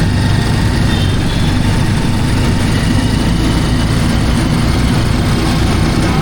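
Motorcycle engine of a Philippine tricycle running steadily, heard from inside the sidecar, with road noise.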